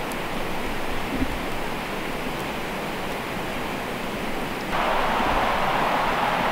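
A steady rushing noise with no clear pitch, which jumps louder and brighter about five seconds in.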